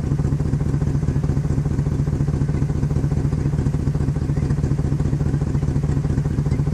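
An engine running at a steady idle with an even, rapid low pulse.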